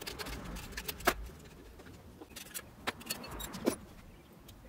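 Metal and plastic copier fuser parts being handled on a desk: light clinks and a few sharp clicks, the loudest about a second in and two more about three and three-and-a-half seconds in.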